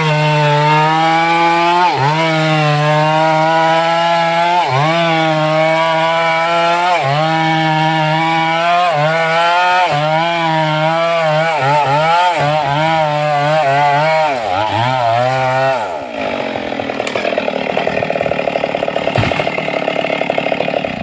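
Stihl MS 382 two-stroke chainsaw cutting into a sengon trunk at full throttle, its engine note sagging and recovering every couple of seconds as the chain bites, with quicker dips near the end of the cut. About three-quarters through, it drops to a lower, pulsing idle.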